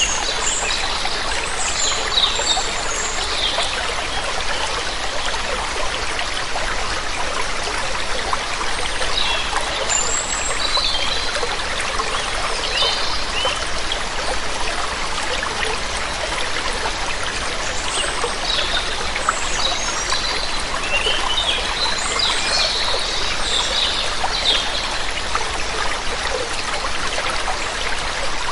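Steady rush of water from a waterfall, with small birds chirping now and then in short clusters: near the start, about ten seconds in, and again about twenty seconds in.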